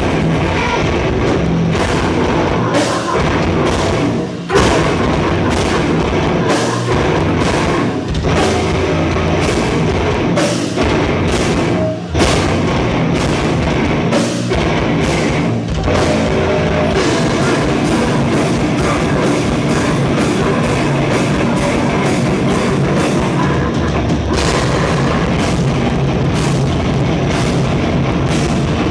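Live heavy rock band playing loud, with distorted guitars and a pounding drum kit, and short breaks about four and twelve seconds in.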